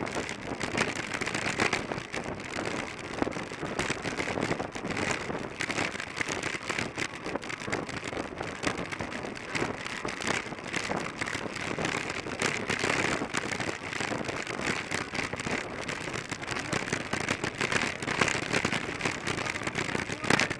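Wind rushing over the microphone of a camera on a track bicycle racing at about 32 mph: a steady hiss that gusts up and down unevenly.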